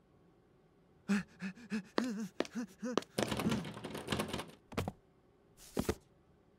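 Cartoon running footsteps: a quick patter of short thuds and taps lasting about three and a half seconds, followed by two sharp clicks about a second apart.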